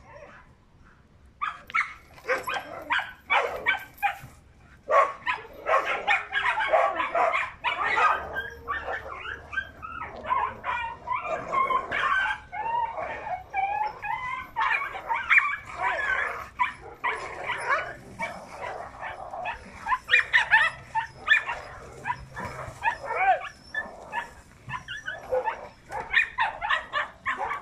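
A pack of dogs fighting, barking over one another without a break, starting about a second and a half in.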